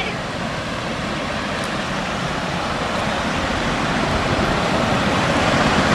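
Road traffic: an approaching vehicle, its noise building steadily louder.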